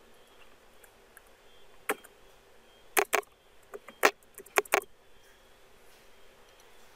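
Computer keyboard keystrokes: an uneven run of separate key presses, the first about two seconds in and the last around five seconds, loudest near three and four seconds.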